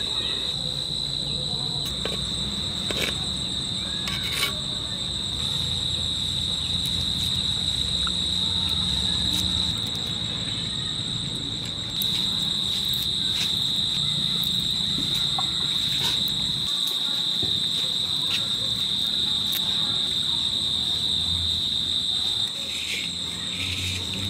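Outdoor insect chorus: a steady, unbroken high-pitched drone of crickets or cicadas, with a few faint taps.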